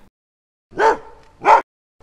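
A dog barking twice, two short single barks about two-thirds of a second apart.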